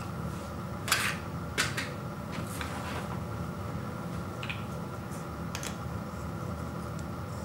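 Handling clatter: a few sharp clicks and knocks of hard plastic as a plastic light-bulb socket and an LED bulb are picked up and fitted together, the two loudest about a second in, over a steady low background hum.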